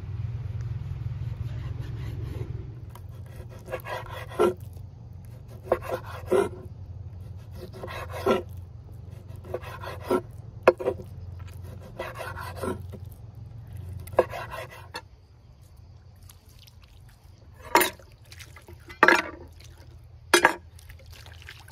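Knife cutting raw pork on a wooden cutting board, a short slicing stroke about every two seconds over a low steady rumble. Near the end come three louder knocks on the board as water is poured over it from a metal can.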